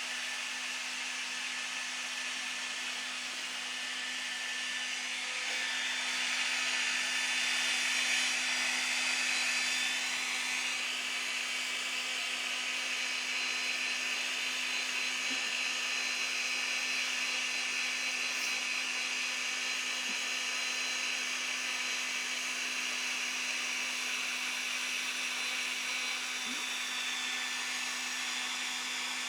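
Handheld hair dryer running steadily: an even rush of blown air over a constant motor hum. It grows a little louder about five seconds in and eases back after about ten seconds.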